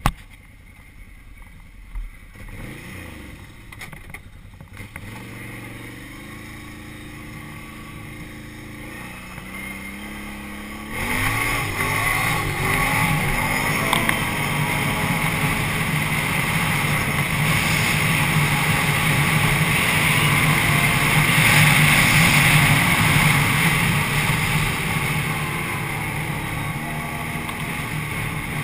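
Can-Am Renegade 800 ATV's V-twin engine running at low revs as the quad moves off slowly, then accelerating hard about eleven seconds in and running steadily at road speed, with wind noise on the microphone.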